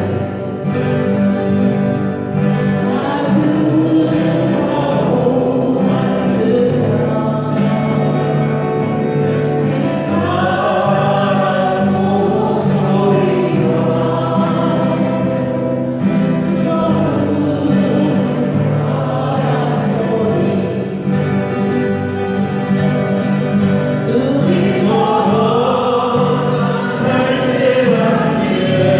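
A group of amateur voices singing a slow Korean ballad together, accompanied by strummed acoustic guitars.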